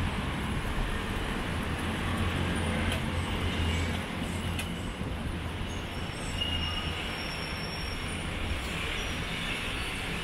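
City street traffic noise: a steady hum of engines and tyres, with a low rumble that eases after about four seconds. A faint high tone comes in around six seconds in.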